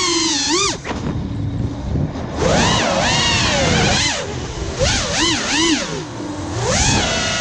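FPV quadcopter's electric motors and propellers whining, the pitch swooping up and down as the throttle is worked. The whine drops away for about a second and a half near the start, then comes back with several quick rises and falls.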